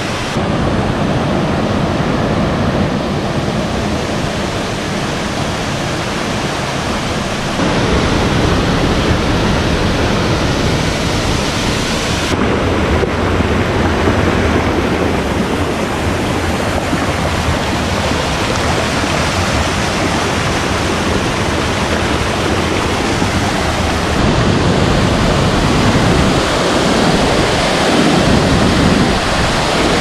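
Rushing water of small cascades and a waterfall pouring over mossy rocks into pools, a steady, loud hiss of water with no pitch. The sound changes abruptly about 8, 12 and 24 seconds in, as it moves between different cascades.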